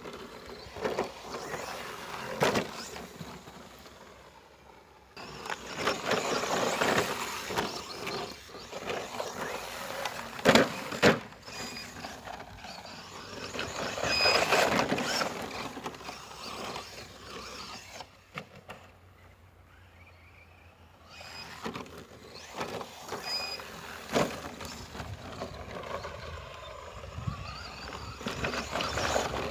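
Stock brushless ECX Torment short-course RC truck driving off-road in bursts: spells of electric-motor and tyre noise broken by quieter pauses, with two sharp knocks about a third of the way through.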